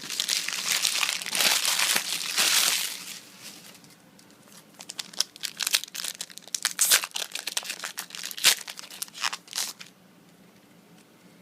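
A Yu-Gi-Oh! booster pack's foil wrapper crinkling as it is torn open, for about three and a half seconds. Then a quick run of small sharp clicks and snaps as the cards are handled and flicked through.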